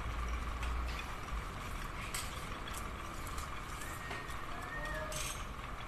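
Steady background hum with a low rumble that fades about a second and a half in, a few light metal clicks as engine parts are handled, and a few short bird chirps near the end.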